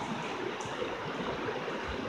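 Shallow, rocky mountain creek flowing steadily, an even rushing hiss of water over rocks, with a soft low thump near the end.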